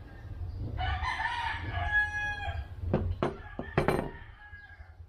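A rooster crowing once, a call of about two seconds. Near the end come a few sharp knocks as the metal torque drive part is set down on the table.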